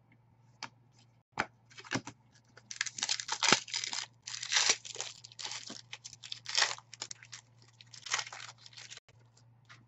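A foil trading-card pack wrapper being torn open and crinkled: a few light clicks, then a run of ripping and crackling that stops about a second before the end.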